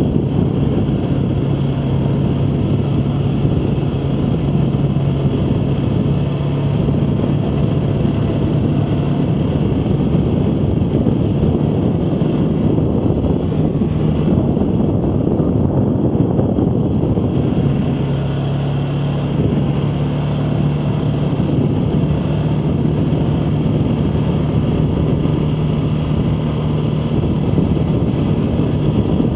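All-terrain vehicle engine running steadily with a continuous rumble. Its steady hum fades for several seconds in the middle and then comes back.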